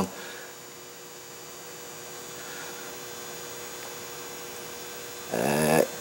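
Steady faint electrical hum with a few thin, constant tones over a light hiss: room tone. A man's voice begins near the end.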